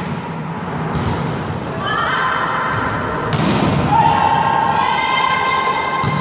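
Volleyball hits during a rally: several sharp slaps of hands on the ball, the loudest about three seconds in, ringing in a sports hall. Shouting voices come in over the second half.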